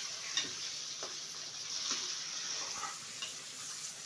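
Raw chicken pieces and browned onions sizzling in hot oil in a pressure cooker while being stirred, the stirring spoon scraping against the metal pot a few times.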